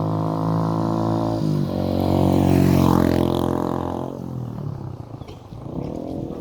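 A motor vehicle's engine running, its note changing pitch about a second and a half in, loudest a second or so later. It drops away about four seconds in and rises in pitch again near the end.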